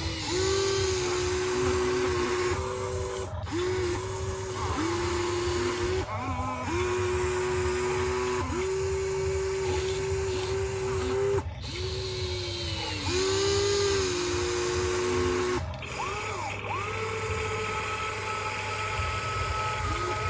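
Small electric motors of a radio-controlled model excavator whining in short runs of one to a few seconds, each starting and stopping with a quick dip in pitch. Near the end a higher-pitched whine holds steady for about three seconds.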